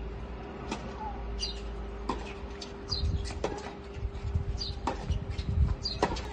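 Tennis balls being struck by rackets during a doubles rally: a series of sharp pops roughly every second and a half. Small birds chirp in short high calls between the hits.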